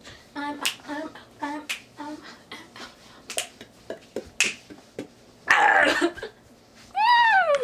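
Finger snaps and sharp clicks mixed with short wordless vocal sounds, a loud noisy burst about five and a half seconds in, and a high voice sliding down in pitch near the end.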